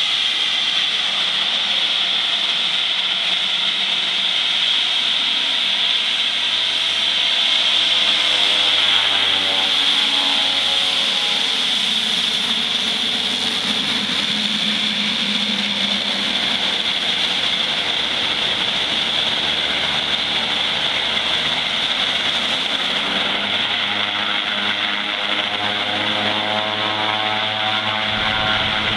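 Dornier 228's twin Garrett TPE331 turboprop engines running at taxi power: a steady high-pitched turbine whine over propeller drone. The pitch shifts as the aircraft taxis close past and swings round to line up for takeoff.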